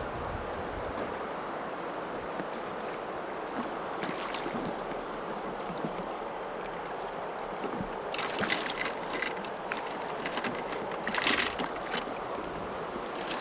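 Steady rush of water with wind, and two short bouts of crackly splashing, about eight seconds in and again near eleven seconds.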